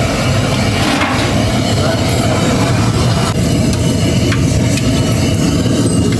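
Kachoris deep-frying in a large iron kadai of hot oil: a steady sizzle under a loud, steady low rumble, with a few light clinks of the metal slotted ladle against the pan.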